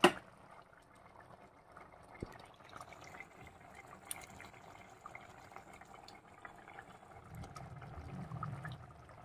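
Thick curry gravy bubbling faintly in a pot as a ladle scoops through it, with scattered small ticks and splashes. A single sharp click right at the start.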